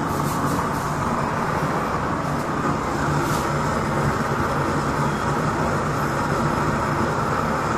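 Waste-oil stove burner running with a steady rushing noise from its flame, with a faint low hum underneath.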